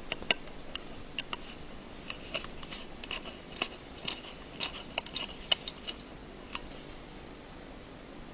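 Irregular small metallic clicks and ticks of a small screwdriver working screws out of a metal bracket inside an iPhone 5, some in quick pairs; they stop about six and a half seconds in.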